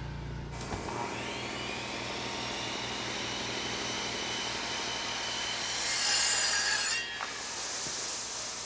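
Electric Delta power saw starting up about a second in, its motor whine rising as it comes up to speed, then running steadily with a rasping noise. It grows louder for about a second near the end, then drops back.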